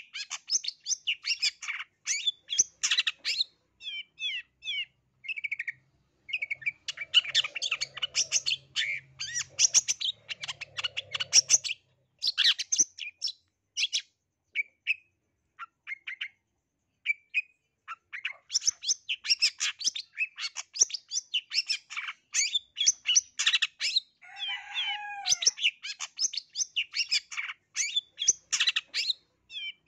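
Long-tailed shrike (cendet) singing a rapid, varied song of quick chirps, trills and harsher notes. The song is packed with 'isian', notes borrowed from other birds. It comes in dense runs, thinning to scattered single notes for a few seconds around the middle before picking up again.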